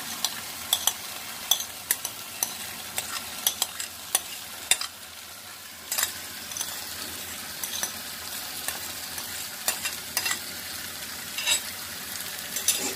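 Onions and tomatoes sizzling in a frying pan as egg-mixed rice is scraped into it from a plate, with a spoon scraping and giving irregular sharp clicks against the plate and pan, the loudest about halfway through.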